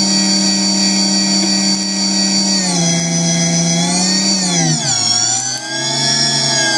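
A machine tool's motor whining at a steady pitch. About three seconds in it glides down to a lower speed, rises briefly, then drops lower again about five seconds in.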